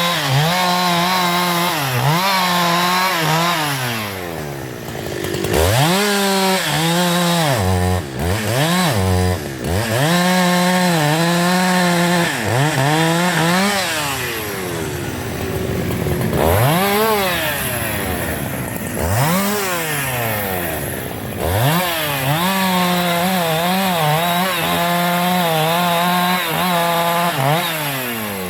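Husqvarna 372 XP two-stroke chainsaw running at high revs, its engine note repeatedly falling sharply and climbing back, about eight times, as the throttle is let off and opened again or the saw is loaded.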